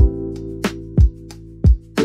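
Background music: an instrumental track with sustained chords and a steady drum beat.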